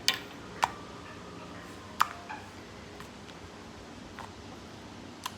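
A few sharp, isolated taps and clicks of hard objects knocked together while handling slime containers, four clear ones spread out with fainter ticks between.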